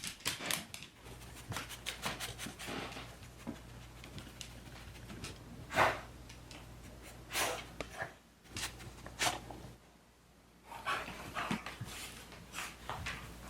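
A dog panting and scuffling, with irregular rustles and soft knocks, over a faint steady low hum.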